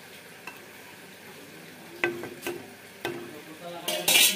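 Metal spatula stirring fish curry in a wok over a low steady simmer, with three sharp knocks of the spatula against the pan about half a second apart midway, each ringing briefly, then a louder harsh scrape near the end.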